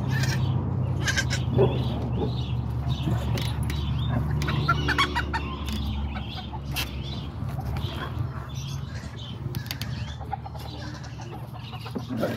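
Chickens clucking over a steady low hum, with scattered small clicks and rustles. A cluster of short calls comes about four to five seconds in.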